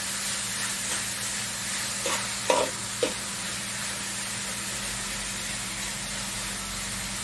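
Chopped vegetables sizzling in olive oil in a skillet while being stirred with a metal utensil, with a steady frying hiss. A couple of short knocks stand out about two and a half and three seconds in.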